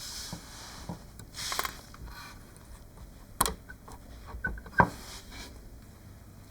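Small hard parts handled on a work surface: light scraping and rustling, then a few sharp clicks, the loudest near five seconds in.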